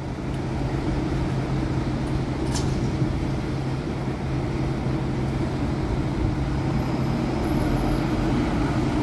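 Volvo B380R coach's rear-mounted 13-litre six-cylinder diesel engine running steadily as the bus pulls away at low speed, with tyre noise on wet pavement.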